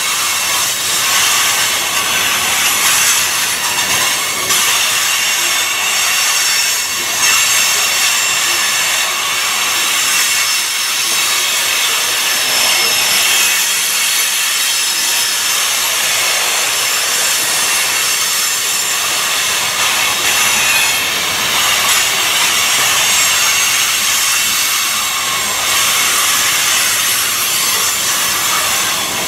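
Boxcars of a freight train rolling past at close range: a loud, steady hiss of steel wheels on rail. A loaded coal train on the next track runs alongside.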